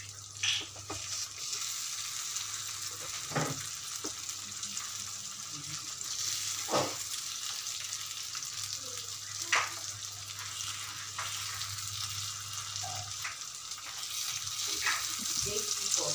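Egg masala sizzling gently in a kadai on a low flame while a steel spoon turns the halved boiled eggs. A few sharp clicks and scrapes of the spoon against the pan come through the sizzling.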